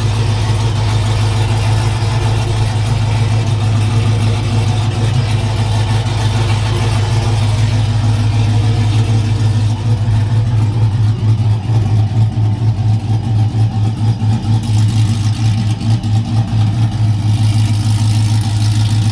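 Ram pickup's Hemi V8 idling just after a cold start, exhaust cutout open so it bypasses the mufflers: a loud, deep, thumping exhaust note that grows lumpier and more pulsing from about halfway through.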